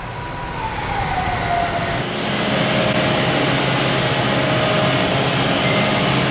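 Machine-shop floor noise: a steady hum and hiss of running machinery with a couple of held tones, growing louder about two seconds in. Early on, a single whine slides down in pitch.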